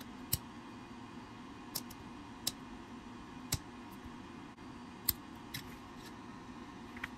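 X-Acto hobby knife blade prying small factory antennas off the plastic roof of an HO scale locomotive cab shell: about six short, sharp clicks at irregular intervals of roughly a second.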